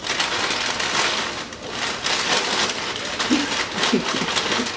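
Brown paper bag and tissue paper crinkling and rustling as hands dig into the bag and pull the wrapped contents out.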